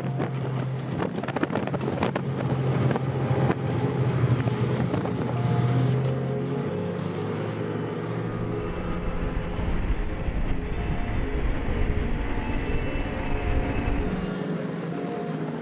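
Snowmobile engine running as the machine drives along, its pitch shifting a few times, with a heavier low rumble for several seconds in the middle and wind on the microphone.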